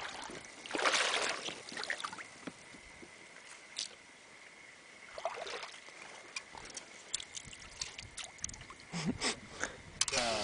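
Water splashing and lapping against an inflatable boat in a few short swishes, followed by scattered light clicks and knocks.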